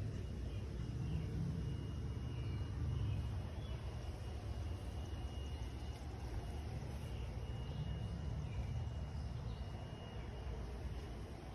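Outdoor ambience: a steady low rumble with a thin, high, steady whine that comes and goes.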